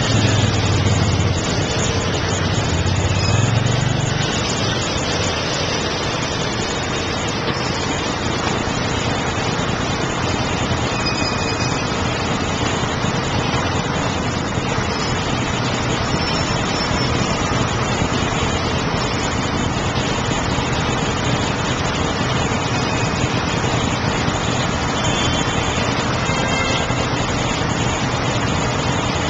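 Motorcycle engine running amid busy city traffic: a low engine hum that is strongest for the first few seconds, then a steady, dense traffic din.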